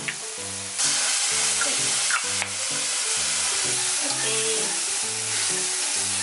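Sliced king oyster mushrooms sizzling in a frying pan as they are stirred with wooden chopsticks. The sizzle gets louder about a second in, with a few light clicks of the chopsticks against the pan. Soft background music plays underneath.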